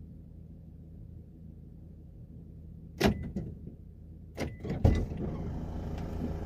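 Parked car's engine idling with a steady low hum. A sharp click about three seconds in, then the driver's door latch clicking and the door knocking open about a second and a half later, after which more outside noise comes in.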